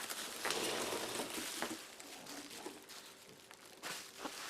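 Packing peanuts and packaging rustling and crinkling as hands dig through a shipping box, busiest in the first second or two, then softer with a few light knocks.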